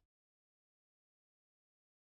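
Digital silence.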